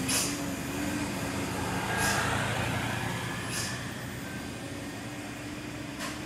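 Vehicle engine idling steadily, with four short, sharp hisses spread across it and a brief swell in loudness about two seconds in.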